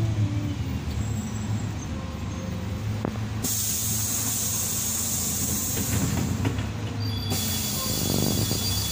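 Interior sound of a Karosa B 961E articulated city bus under way: a steady low engine drone. A high hiss comes in suddenly about three and a half seconds in, drops out briefly and returns near the end.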